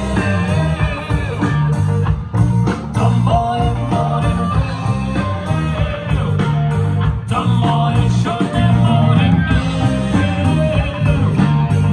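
Live rock band playing through a PA system: electric guitars, bass guitar and drums, with a steady beat and a prominent bass line.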